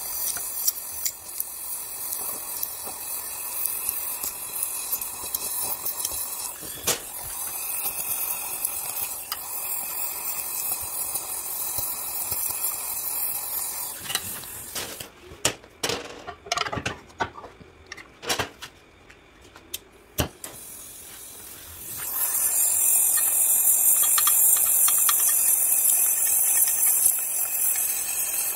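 Gas welding torch flame hissing steadily as it plays on an aluminium crankcase while filler rod is melted in. About fourteen seconds in the hiss drops away, leaving a few sharp clicks. It comes back louder some eight seconds later.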